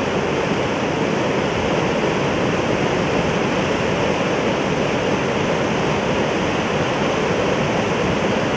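Steady, loud rushing of river white water pouring over rapids.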